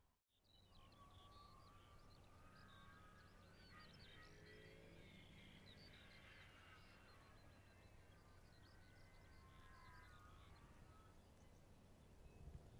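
Faint birdsong: many short chirps and trills, with a few held whistled notes, over a low steady hum.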